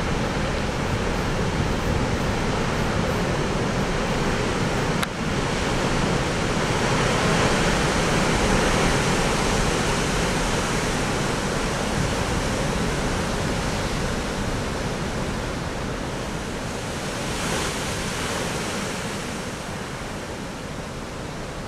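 Steady roar of heavy storm surf mixed with strong wind, with a single click about five seconds in. The roar eases slightly over the last few seconds.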